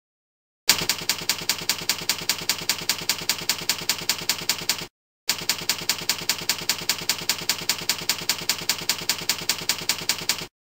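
Slideshow typewriter sound effect playing with a letter-by-letter text animation: rapid, even key clicks, about seven a second. It starts just under a second in, breaks off briefly about halfway, and stops shortly before the end.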